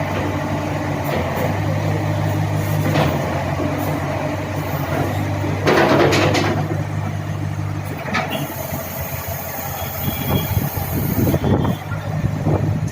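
Bobcat B900 backhoe loader's diesel engine running steadily while the machine works, with scattered metallic clanks, the loudest about six seconds in. After about eight seconds the steady engine note drops away and irregular knocks and thuds follow.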